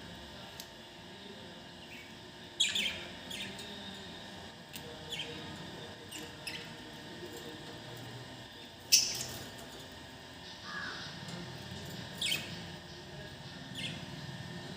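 Budgerigars chirping: short, sharp chirps at irregular intervals, the loudest about nine seconds in.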